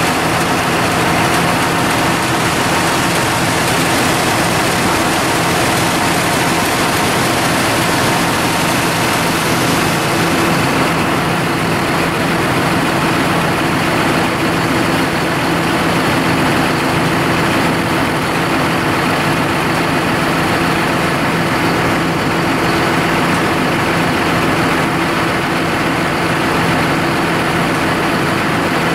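John Deere 7530 tractor's diesel engine running steadily at a constant speed.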